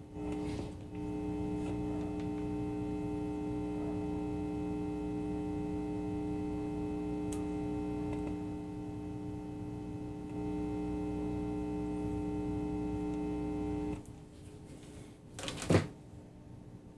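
Loudspeaker giving a steady low electrical buzz that comes on abruptly and cuts off suddenly about fourteen seconds in, followed by one loud click near the end.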